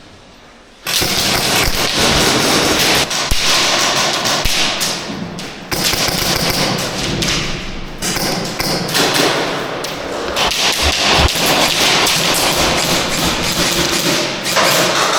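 Airsoft guns firing in long rapid bursts, starting about a second in, with a few short pauses between bursts.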